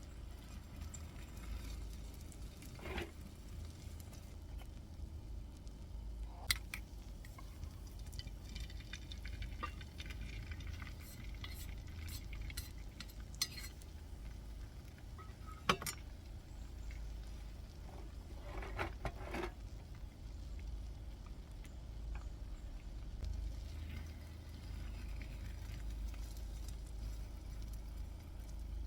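Scattered light clinks and knocks of utensils and cookware being handled, a few short clusters over a steady low rumble.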